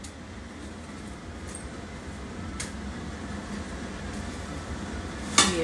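Steady low background hum with a small click about two and a half seconds in, then near the end a short, sharp clank of a metal lid being set on a steel pot.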